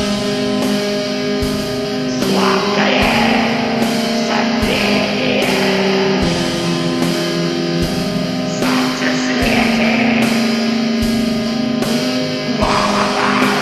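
Depressive black metal: sustained, droning electric guitar chords over a slow, steady drum beat.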